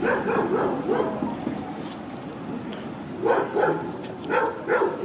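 A dog barking repeatedly in short barks: a quick run at the start, then about four more in the second half.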